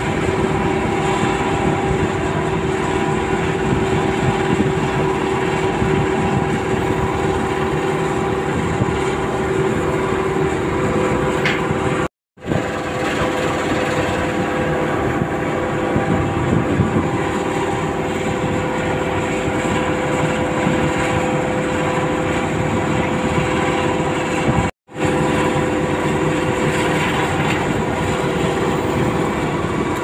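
Hydraulic excavators' diesel engines running steadily under work, a constant drone with a steady high hum over it. The sound breaks off for a split second twice.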